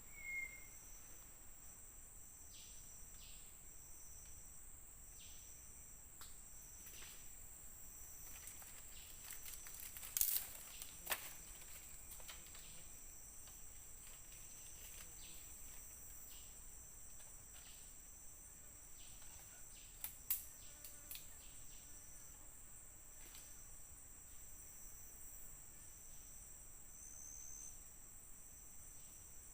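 Steady high-pitched chorus of forest insects, with one part pulsing evenly. A few sharp clicks or knocks cut through it, two about a third of the way in and one about two-thirds in.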